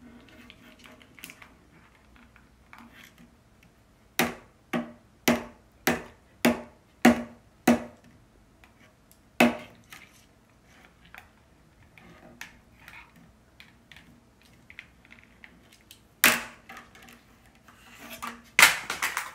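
African grey parrot working a plastic TV remote with its beak, knocking it against a wooden desk: a run of seven sharp knocks a little over half a second apart, a few single knocks later, and a louder cluster near the end, with faint plastic clicks in between.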